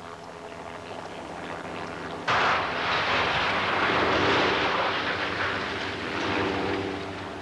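A Class 46 diesel locomotive's Sulzer twin-bank engine approaches at high speed, growing louder. About two seconds in comes a sudden loud crash as the locomotive hits the 50-ton nuclear flask at nearly 100 mph. The crash noise goes on for several seconds and gradually eases off.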